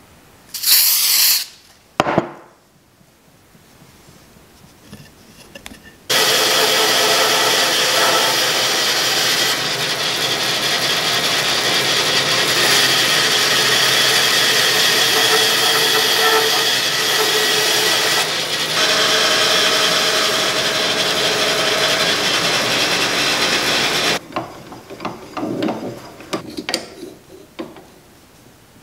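Bandsaw running and cutting through a thick walnut block, a steady sound that cuts off suddenly near the end. Before it come a short hiss and a sharp knock, and after it a few light handling knocks.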